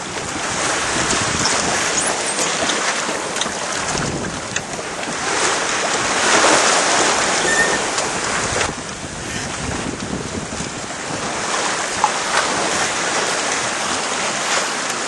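Wind buffeting the microphone over the rush and splash of sea water along the hull of a small sailing yacht running under sail in a following sea. The rush of water swells loudest about six seconds in.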